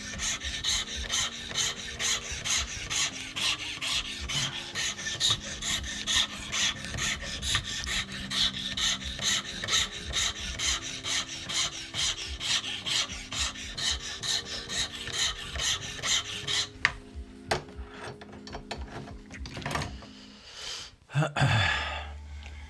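A flat hand file rasping across a wooden pipe block clamped in a vise, in steady, regular back-and-forth strokes. The filing stops about three-quarters of the way through, followed by a few knocks and a brief rising handling noise.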